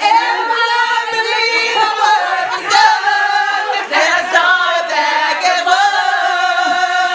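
A woman singing unaccompanied into a microphone, holding long notes.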